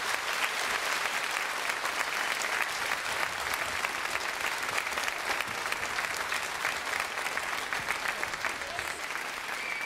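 A large audience of children and adults clapping steadily in applause at the end of a song.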